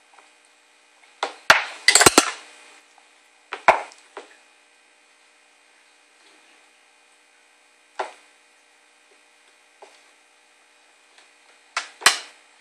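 A metal spoon and a small glass bowl knocking and clattering on a plastic high-chair tray as a baby handles them: a quick run of clatters about a second and a half in, single knocks near four and eight seconds, and another clatter near the end.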